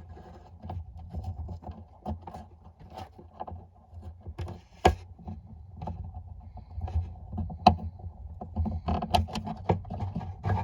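Small irregular clicks, knocks and scrapes of a screw and tool being worked inside an acoustic guitar's hollow wooden body through the sound hole, with a few sharper clicks. A steady low hum runs underneath.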